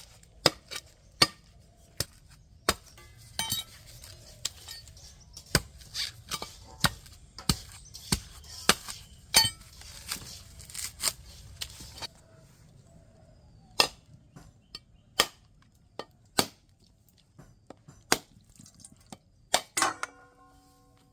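Irregular sharp knocks and clinks of kitchen utensils, about one or two a second, over a steady low hiss that stops about twelve seconds in.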